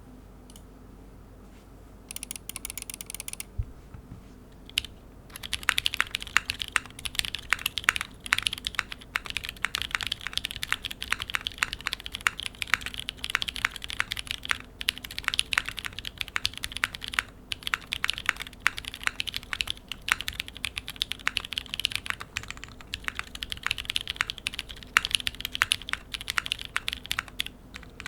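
Typing on a Phantom 65 mechanical keyboard with lubed, filmed AEBoard Naevy switches on a POM plate, ePBT ABS keycaps and no foam: fast, continuous keystrokes with a few short pauses. About two seconds in there is a brief, fast rattle of evenly spaced clicks before the typing starts.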